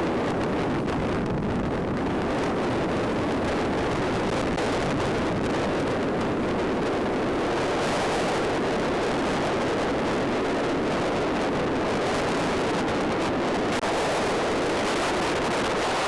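Blizzard wind blowing steadily across open lake ice and buffeting the microphone, a constant rushing noise.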